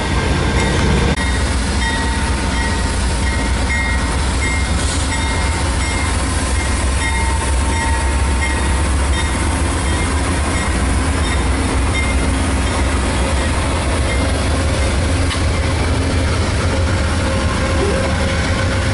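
Amtrak GE P42DC diesel locomotives, V16 engines, idling with the train standing at the platform: a steady, loud low rumble. A string of short high beeps repeats over it through the first two-thirds.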